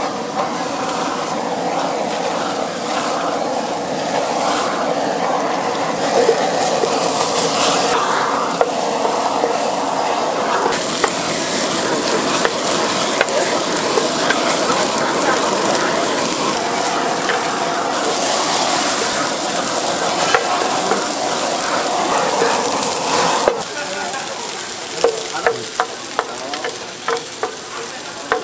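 Abalone and conch grilling in butter, a loud steady sizzle. Near the end the sizzle drops and a run of sharp clicks follows.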